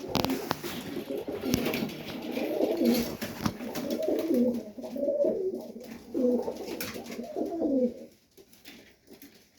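Serbian Highflyer pigeons cooing in the loft: a run of repeated low coos for about eight seconds, with a few faint taps, dying away near the end.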